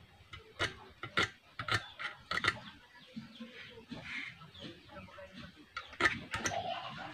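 Irregular sharp clicks and taps of a soldering iron and wires being worked against the coil terminal of a fish shocker. The taps come in a cluster in the first few seconds and again near the end.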